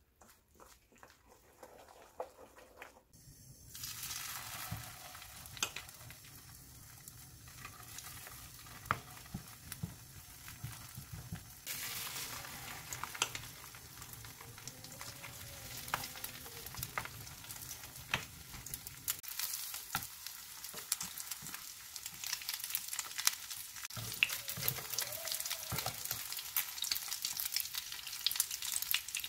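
Egg-and-glass-noodle (japchae) patties frying in oil in a nonstick pan: a steady sizzle with scattered sharp crackles that starts a few seconds in, after a few light clicks of mixing in a steel bowl. The sizzle gets louder about twelve seconds in.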